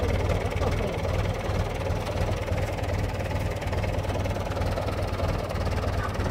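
Engine of an old farm tractor running steadily, a low even chugging.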